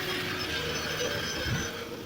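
Sawmill running while cutting an elm log: a steady mechanical noise with a thin high whine that eases off near the end.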